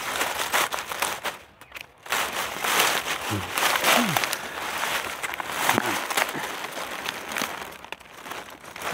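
Dry leaf litter and twigs rustling and crackling as a gloved hand and knife push through the forest floor, with a quieter pause about a second and a half in.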